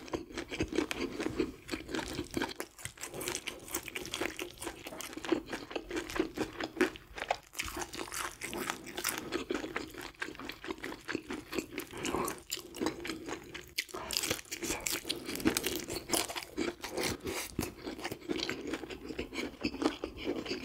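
Close-miked chewing of grilled sea bream, a dense run of wet mouth clicks and smacks, with the fish being pulled apart by fingers and chopsticks partway through.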